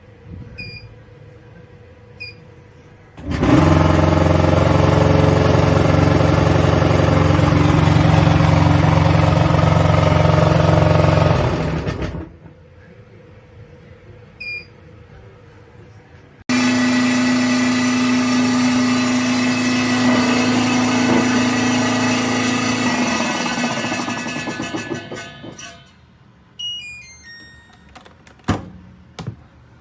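Touch-panel beeps from a compact clothes dryer, then its fan motor runs with a loud, steady hum for about nine seconds and stops abruptly. After another beep it runs again with a higher-pitched hum for about eight seconds, fades out, and a short falling series of beeps follows.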